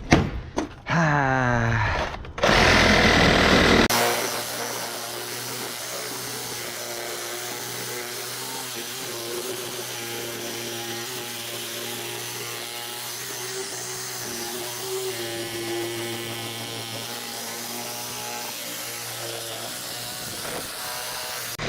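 Cordless power saw cutting through the rusted mount of a seized HVAC blower motor. It is loud and uneven for the first few seconds, then runs steadily.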